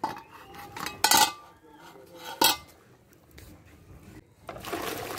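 Kitchenware clinking and clattering: three sharp clinks about a second apart, then a short rush of noise near the end.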